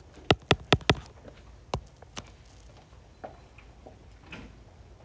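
Calculator keys being pressed, sharp clicks: four in quick succession in the first second, then two single presses and a few fainter taps, as 15 divided by cos 60 is keyed in.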